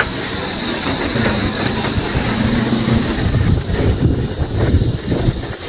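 Wind rumbling over the microphone, with a steady high buzz of insects behind it.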